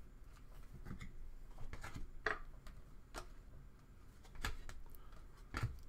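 Glossy Select Soccer trading cards being flicked through and laid down onto stacks on a table: about six irregular sharp clicks and slaps of card on card.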